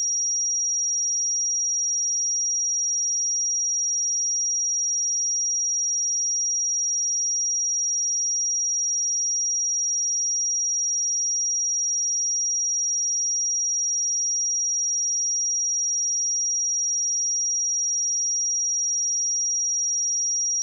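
A single pure sine-wave test tone at 5693 Hz, held steady at one pitch and level, with no other sound.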